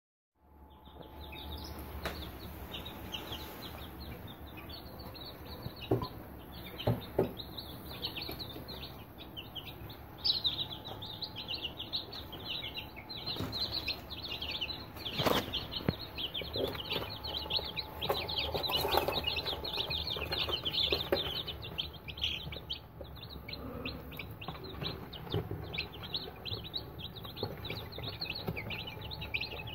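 A brood of newly hatched Aseel chicks peeping continuously, many short high chirps overlapping. A few sharp knocks stand out, the loudest about fifteen seconds in.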